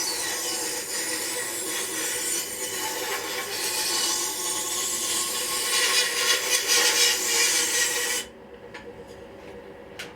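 A 14-inch bandsaw cutting wood: a steady whirring with the rasp of the blade through the wood, which stops abruptly about eight seconds in. A few light knocks follow in the quieter remainder.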